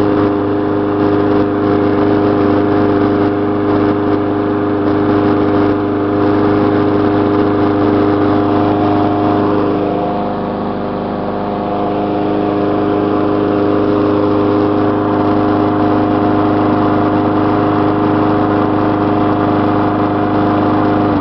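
Gas lawn mower engine running steadily at speed on old gas being burned off, with a steady whine; right at the end it winds down and stops.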